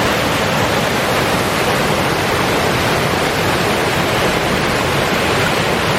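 Waterfall and its creek: a loud, steady rush of falling and running water.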